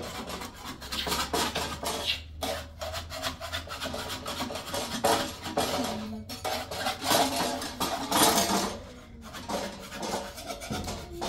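Kitchenware scraping and rubbing, with clinks of pots and utensils, coming in uneven spells that are louder at several points.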